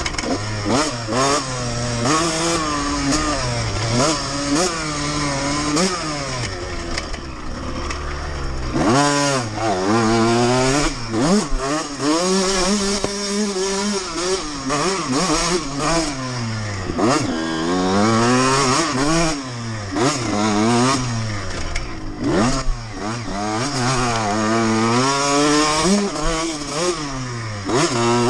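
2002 Honda CR125R two-stroke single-cylinder engine ridden hard, its pitch rising and falling over and over as the throttle is opened and closed and gears are changed. Occasional short knocks come through over the engine.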